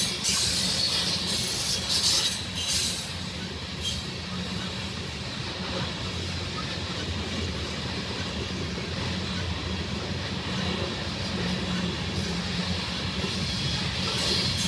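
Freight train of open hopper cars rolling past: a steady rumble of steel wheels on rail, with brighter high-pitched wheel noise in the first few seconds and again near the end.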